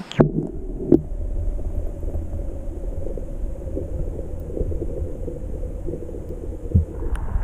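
Muffled, low rumble of river water heard through a submerged camera housing, with the high sounds cut away. Two sharp knocks and a splash come in the first second as the camera goes under.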